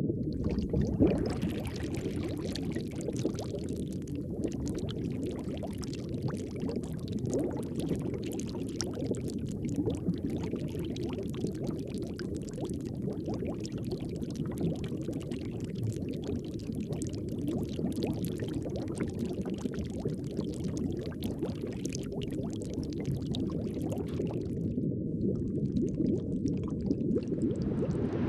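Underwater water noise: a steady churning, bubbling rumble of moving water with a dense crackle of fine clicks over it.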